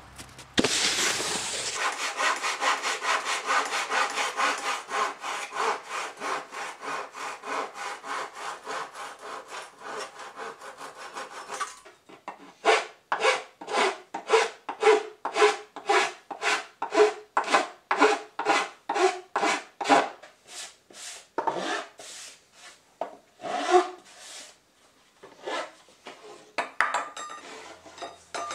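Hand file rasping along the edge of a recycled synthetic decking board, shaping the snowskate's edge. Quick, even strokes about four a second for the first ten seconds or so, then after a short break slower, louder strokes about two a second, and a few scattered strokes near the end.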